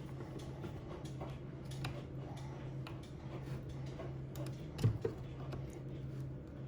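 Small, irregular ticks and taps from an iron and scraper being worked over the dashboard, with a louder knock about five seconds in, over a steady low hum.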